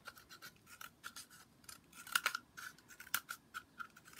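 Scissors snipping repeatedly into the end of a cardboard tube: a quick, irregular run of small cuts, with a couple of sharper snips about two and three seconds in.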